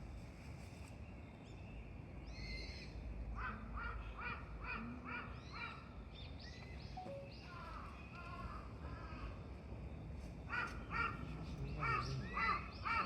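Red panda calling: two runs of short, repeated chirps, about three a second, the first a few seconds in and a louder run near the end, with a few scattered calls between.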